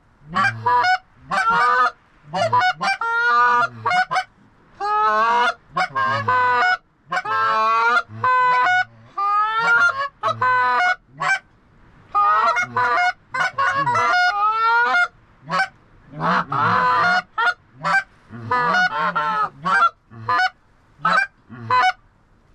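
Geese honking and clucking in a rapid, near-continuous string of short calls, several a second, as a flock comes in to land.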